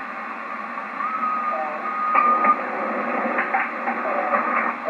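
Yaesu FT-990 shortwave receiver on 15 m single sideband, heard through its speaker: a steady hiss of band noise, a steady heterodyne whistle from about one to two and a half seconds in, and faint, garbled voice-like signals rising from about two seconds in.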